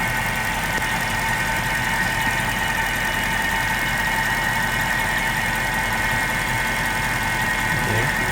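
Mercedes-Benz S550's M273 V8 idling steadily, heard from the open engine bay, with a steady high whine over the engine hum.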